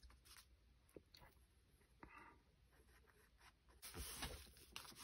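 Mostly near silence, with faint paper handling: a light tap about a second in, then paper sliding and being smoothed down by hand from about four seconds in.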